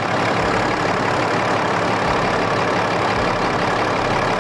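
Cummins inline-six turbo-diesel idling steadily at operating temperature, heard over the open engine bay as the oil cap is taken off for a blow-by check. The check shows minimal to no blow-by, the sign of healthy rings.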